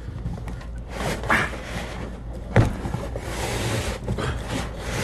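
Cardboard boxes and packing being handled and pulled open: rustling and scraping, with a sharp knock about two and a half seconds in.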